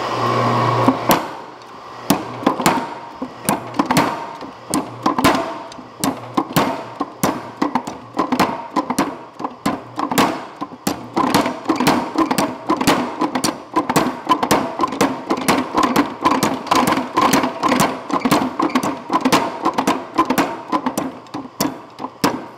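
Hammer blows on a top fuller tool driving into steel on the anvil, a steady run of ringing metal strikes, about two or three a second, beginning about a second in.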